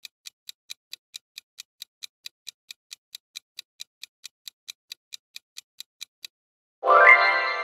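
Countdown timer sound effect: fast clock ticking, about four to five ticks a second, that stops near the end. A loud bright chime then rings out and slowly dies away, signalling that the time to answer is up.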